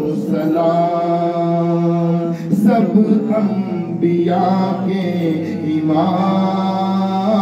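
A man singing an Urdu naat in long, drawn-out held notes, with a short break about two and a half seconds in.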